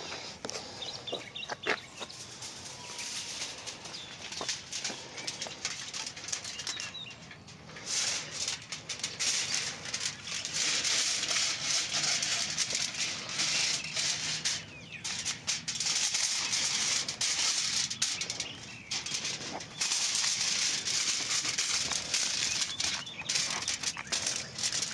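Aluminium foil crinkling and rustling against a cardboard box as the foil is handled and laid in, with a few sharp clicks near the start and long stretches of dense rustle.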